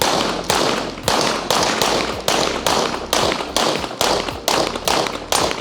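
Gun fired rapidly in a steady string of shots, about three a second, each report trailing off just before the next.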